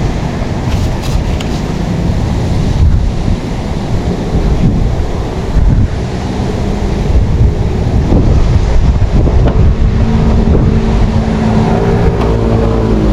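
Wind buffeting the microphone with a loud low rumble. A steady engine hum joins about two-thirds of the way through.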